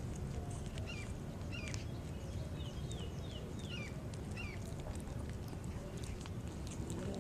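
Kittens crunching dry kibble from a plate, a scatter of small sharp clicks, over a steady low rumble. A bird chirps about six times, short falling notes, between about one and four and a half seconds in.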